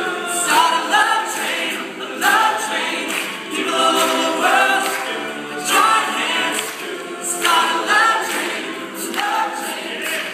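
Large all-male a cappella group singing together in harmony, with sung phrases repeating in a steady rhythm.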